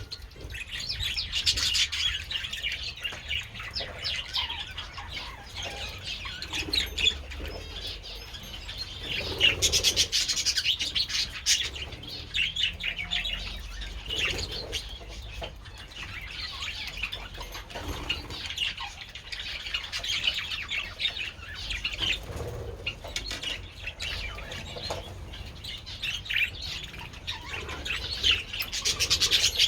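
A flock of budgerigars chattering and chirping continuously, many birds warbling over one another, louder in patches.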